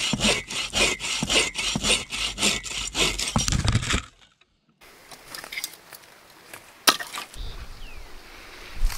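Hand saw cutting through a dry, dead log in quick back-and-forth strokes, about three to four a second. The sawing stops abruptly about four seconds in. After that there is only faint background and one sharp click about seven seconds in.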